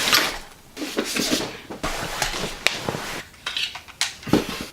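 Hard objects being handled: an irregular series of clicks, knocks and short clattering rustles.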